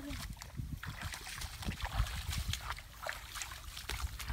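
Footsteps splashing and swishing through shallow muddy water and grass, a quick run of irregular splashes and rustles, over a steady rumble of wind on the microphone.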